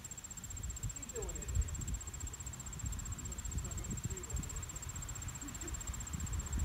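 Steady high-pitched insect trill, like crickets, over a low uneven rumble.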